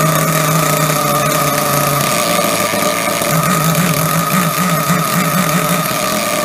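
Small nitro glow-plug engine of an RC buggy running steadily at a high-pitched idle, freshly started with the glow plug refitted and the throttle trim raised.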